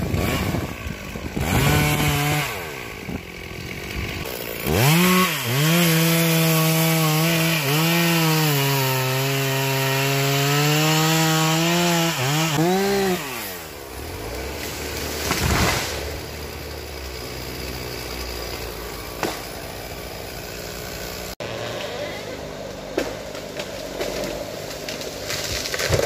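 Chainsaw revving, then cutting steadily through a felling cut for several seconds, its pitch dipping under load before it drops away. About halfway through, the tree comes down with a crash of breaking branches and a heavy thud.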